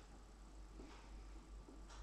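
Near silence with a steady low hum and three faint clicks as a plastic spice shaker jar is turned over in the hands.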